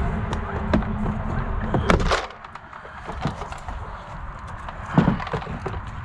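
Ford Transit's plastic interior door trim panel being lifted off the door, plastic clicking and knocking as it comes free, with sharp knocks about two seconds in and again about five seconds in. A low rumble during the first two seconds cuts off suddenly.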